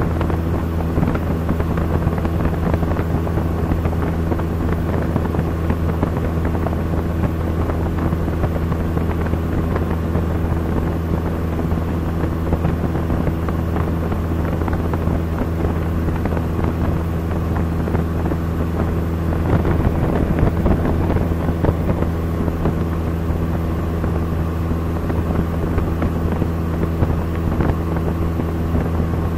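Cessna 172's piston engine and propeller droning steadily, heard from inside the cabin in flight, with a brief swell of rushing noise about two-thirds of the way in.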